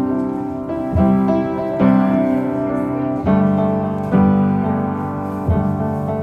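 Background music: piano chords struck about once a second, each ringing out and fading, between sung lines of a song.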